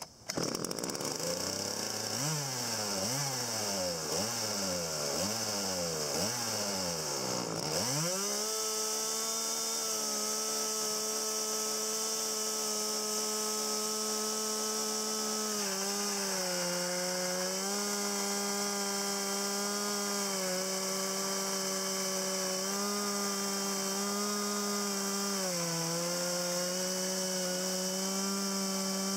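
Husqvarna 40cc two-stroke chainsaw running. For the first eight seconds it revs up and down about five times, then it holds at full throttle, its pitch dipping briefly a few times under the load of ripping a log in a homemade chainsaw mill.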